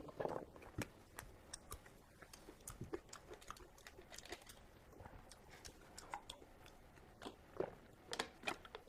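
Close-miked chewing of steamed pork: soft, wet mouth clicks and smacks scattered throughout, a few louder ones near the start and again near the end.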